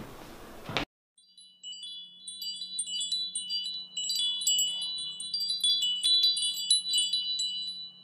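Wind chimes tinkling: many high, clear tones struck irregularly and overlapping as they ring out, over a faint steady low hum. They begin about a second in, after a hard cut from quiet room tone.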